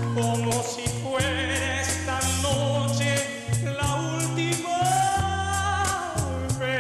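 A man singing live into a handheld microphone, his held notes wavering with vibrato, over an instrumental accompaniment with bass and a steady beat.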